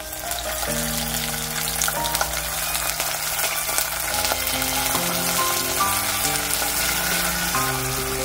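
Water poured into a hot saucepan of fried, browned onions, hissing and sizzling as it hits the pan. Background music with a plucked melody plays over it.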